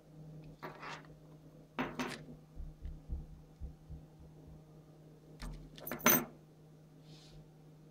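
Handling noises as the Park Tool TM-1 spoke tension meter's plastic conversion card, with its bead chain and spoke gauge, is picked up and laid back on the paper instruction sheet: a few rustles and small knocks and clinks, the sharpest about six seconds in.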